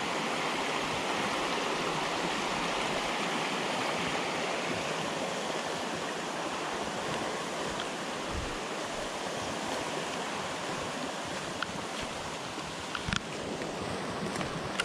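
Creek water running, a steady rushing, with a few faint clicks near the end.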